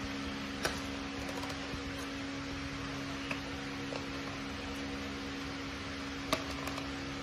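Steady indoor hum and hiss, like a fan or appliance running, with a few light clicks: one just under a second in and a sharper one near the end.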